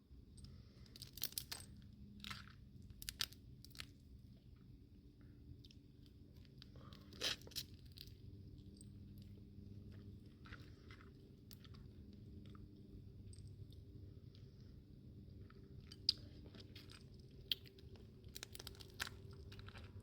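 Crawfish being eaten: shells cracking and tearing, with crunching and chewing in scattered short crackles, the loudest about seven seconds in and again near sixteen seconds.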